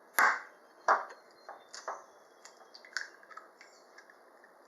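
An egg being cracked on the rim of a bowl and its shell broken open. There is a sharp crack just after the start and another about a second in, then faint shell crackles and small clicks.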